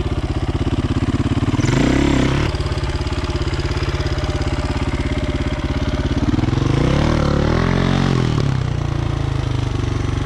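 KTM enduro motorcycle engine idling, blipped briefly about two seconds in and revved up and back down again near the end.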